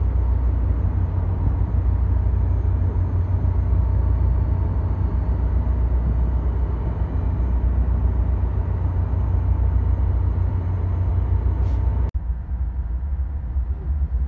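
Caltrain EMD F40PH diesel locomotives running at a standstill: a steady, loud low diesel rumble with a faint steady whine above it. About 12 s in the sound cuts abruptly to a duller, quieter rumble of a train on the move.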